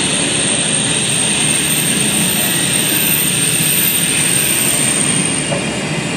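CR400AF high-speed electric train rolling slowly past the platform as it pulls into the station. A steady rushing rumble carries a thin high whine that stops about five seconds in.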